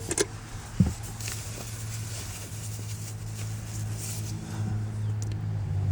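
A motor vehicle's engine running with a steady low hum that slowly grows louder, with one sharp knock about a second in.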